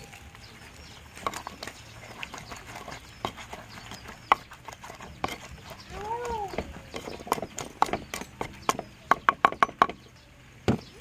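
Wooden pestle pounding a chilli-garlic paste in a wooden mortar: irregular dull knocks that speed into a quick run of strikes near the end. A short rising-and-falling call sounds once about six seconds in.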